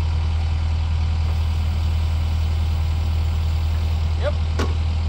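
Takeuchi TL10V2 compact track loader's diesel engine idling steadily with a low, even hum. About four and a half seconds in there is a brief squeak and a sharp click.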